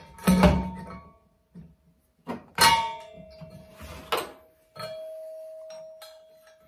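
Steel parts of a manual implement lift knocking together during assembly: a few sharp metallic clanks, the loudest about two and a half seconds in, and a last knock near five seconds in that leaves a clear ringing tone fading over about a second and a half.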